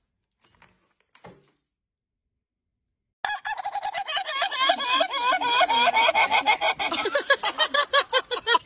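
A rooster calling in a rapid, unbroken run of wavering clucks that starts suddenly about three seconds in, after near silence.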